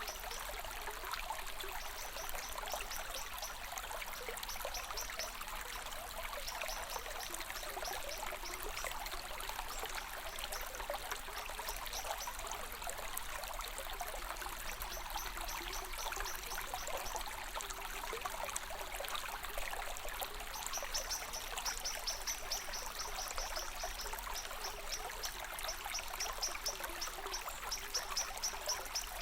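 Small stream of water running and trickling steadily. A high, rapid pulsing sound comes and goes in bursts over it, more often in the second half.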